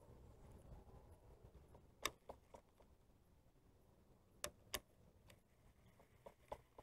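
Near silence broken by a few sharp clicks and ticks: one strong click about two seconds in and two more close together a little past the middle. This is fishing tackle being handled while a badly tangled lure and line are worked on.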